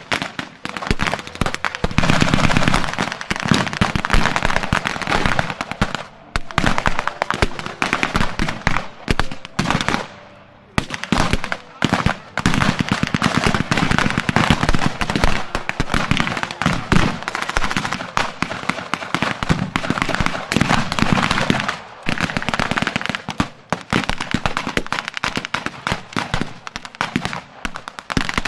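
Staged battle gunfire, most likely blanks: rifle and automatic-weapon shots in rapid, near-continuous succession, with a brief lull about ten seconds in.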